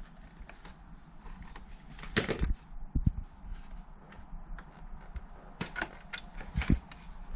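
Irregular clicks and knocks of hard parts being handled, with louder clusters about two, three, five and a half and six and a half seconds in.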